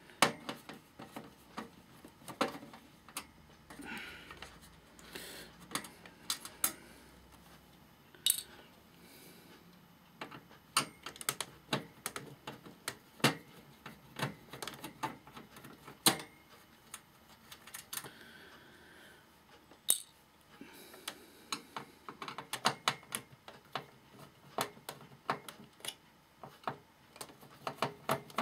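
Irregular sharp metallic clicks and knocks of a screwdriver and screws against a hi-fi amplifier's metal chassis as its bottom plate is unscrewed.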